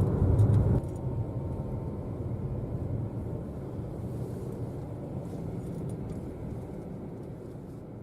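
Road and engine noise of a moving car heard from inside the cabin: a steady low rumble that drops suddenly in level about a second in and then slowly fades.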